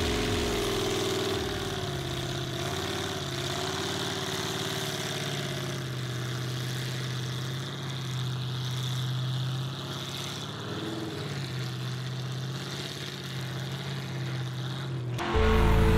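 A stuck mud truck's engine idling steadily, its pitch wavering a little. Loud music cuts in abruptly near the end.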